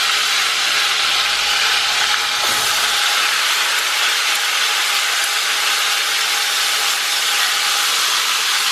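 Marinated chicken sizzling in hot oil in a cooking pot, a steady loud hiss.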